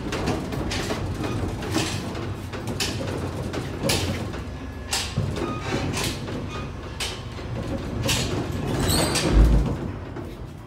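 Vintage Otis traction freight elevator running in the shaft: a steady mechanical rumble with sharp clacks about once a second. Near the end comes a loud low thump as the car slows and levels at the floor, after which the sound drops away.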